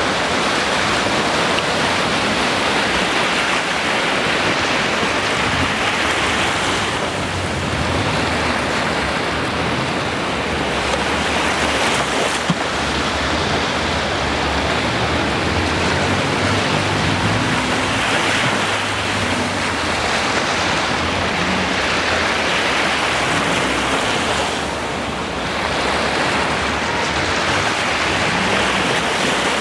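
Ocean waves breaking on the shore in a continuous wash of surf that swells and eases every several seconds. A single brief click comes near the middle.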